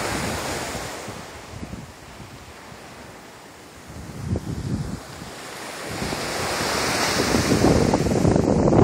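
Caribbean surf washing in and breaking on shore rocks, with wind buffeting the microphone. The wash dies down a couple of seconds in, then swells again and is loudest near the end.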